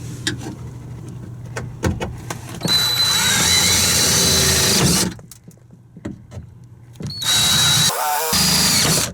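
Power drill boring through the van door's inner sheet-metal panel at the pre-marked dents, in two bursts of about two seconds each with a steady high whine, the second stopping briefly partway through. A few light clicks of handling come before the first burst.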